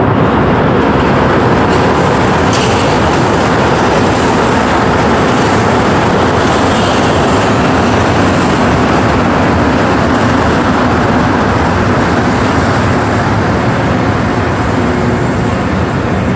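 Rubber-tyred Montreal metro train pulling into the station alongside the platform: a loud, steady rush of running noise that eases slightly near the end as it slows.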